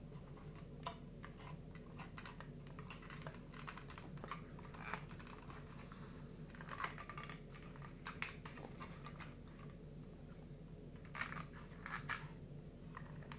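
Faint, scattered clicks and scratches of 3D puzzle pieces being handled, rubbed and pressed into place, with small flurries of clicks about halfway through and near the end.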